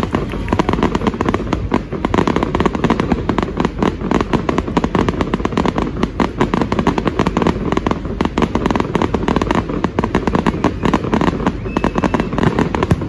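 Fireworks display: a dense, unbroken barrage of rapid bangs and pops, many a second.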